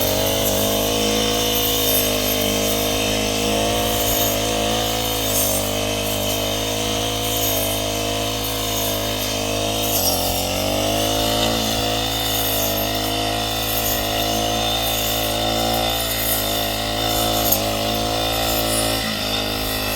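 An engine running steadily, its pitch sagging and recovering about halfway through and again near the end, as under changing load.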